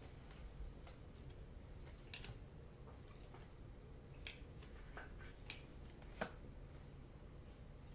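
Stiff chromium Panini Prizm trading cards being flipped through and slid against each other in the hands, giving several faint, short clicks spread across the stretch over a quiet room background.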